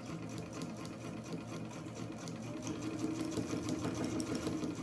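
Vintage all-metal Japanese Modern Home sewing machine running steadily with a fast, even ticking, a little louder about halfway through; it runs very quiet and smooth, freshly oiled and fitted with a new belt.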